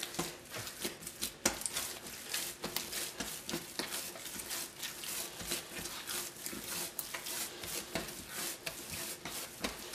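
Yeast dough, just worked with oil, being kneaded by hand on a countertop: quick, irregular slaps and pats of dough and hands, several a second.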